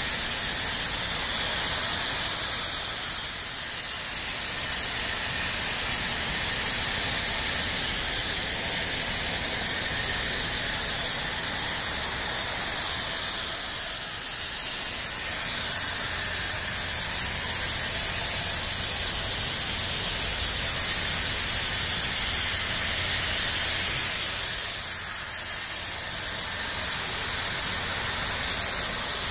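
Steady hiss of grain streaming from a Cornado grain spreader and raining onto the pile inside a filling grain bin.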